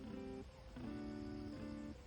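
Background music: acoustic guitar playing soft chords, changing about every half second.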